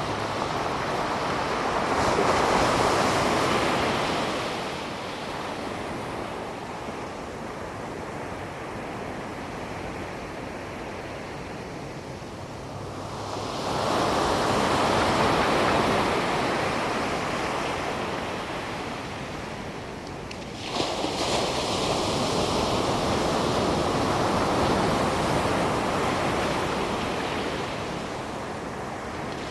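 Ocean surf washing onto a sandy beach in slow surges: a swell about two seconds in, another about halfway, and a wave breaking suddenly about two-thirds of the way through, followed by a long wash.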